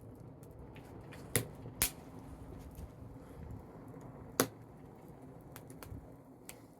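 Small fire of disposable wooden chopsticks crackling, with scattered sharp pops (three loud ones, the loudest about four seconds in) over a low steady rush.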